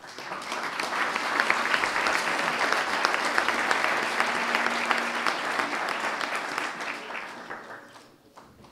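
An audience applauding, starting at once and dying away about eight seconds in.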